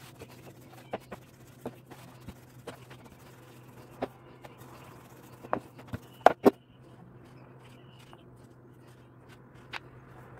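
Wooden rolling pin and hands working dough on a wooden pastry board: scattered light taps and knocks, with two loud knocks close together a little past halfway. A steady low hum runs underneath.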